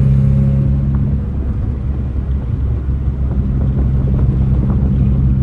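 1990 Mazda Miata's 1.6-litre four-cylinder engine running under way, heard from inside the open cabin with road rumble. Its steady note weakens a little after a second in and comes back strongly near the end.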